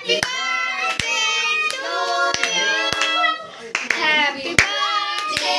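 Several people singing together while clapping hands in a steady rhythm, about three claps every two seconds.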